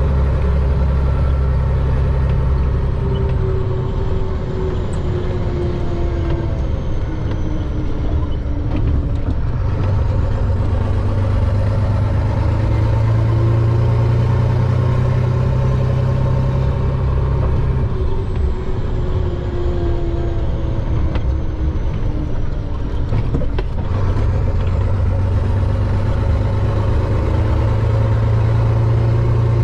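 Chenglong concrete mixer truck's diesel engine running under way, heard from the cab. Its pitch climbs slowly and drops back twice, about nine and twenty-three seconds in, as it changes gear. A faint high whine rises and falls with the engine speed.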